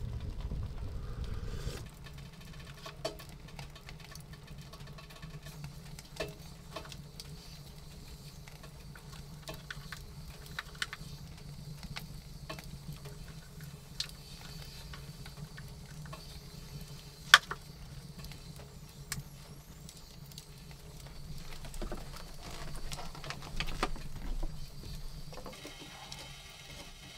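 Scattered clicks, knocks and clinks of cookware, a mug and a spoon being handled, over a faint steady hum. There is one sharp, loud click about two-thirds of the way through and a busier patch of handling noise near the end. A low rumble at the very start stops about two seconds in.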